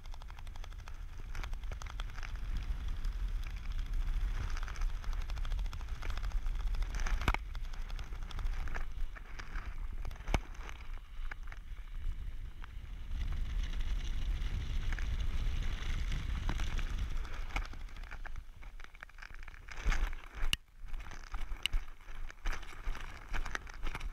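Wind rushing over a helmet camera's microphone while flying under an open parachute canopy: a steady rumble with crackling buffeting. In the last few seconds it turns choppy, with sharp knocks and rustles of gear and fabric.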